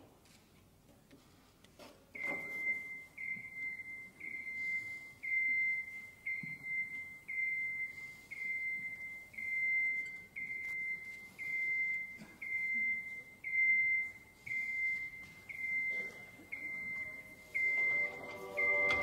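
Heart monitor beeping with each heartbeat: a short, high, single-pitch beep about once a second, steady and regular, starting about two seconds in.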